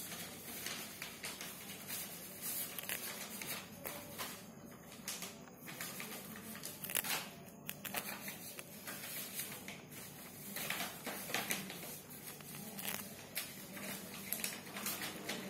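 Rabbit biting and chewing a large green leaf: irregular crisp crunching and tearing of the leaf, with short pauses between mouthfuls.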